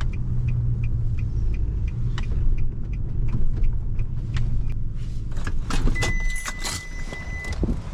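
Vehicle engine running, heard from inside the cab, with a light ticking about three times a second. About five and a half seconds in come a few clicks and knocks, and a steady high beep sounds for about a second and a half.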